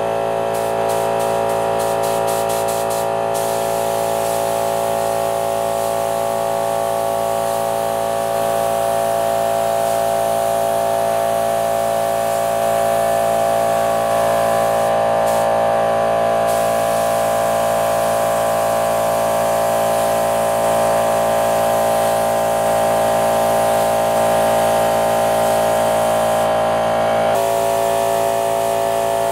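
Gravity-feed air spray gun spraying primer: a steady hiss of compressed air that stutters and drops out briefly a few times as the trigger is let off, over a constant machine hum.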